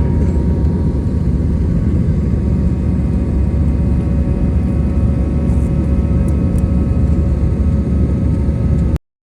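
Airbus A320 cabin noise: a steady low rumble of the jet engines and the airflow, with a few steady engine tones on top. It cuts off suddenly near the end.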